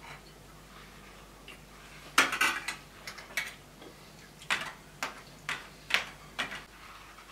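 Spoons and forks clinking against plates and bowls on a metal serving tray during a meal: a quick cluster of clinks a little over two seconds in, then single clinks about every half second.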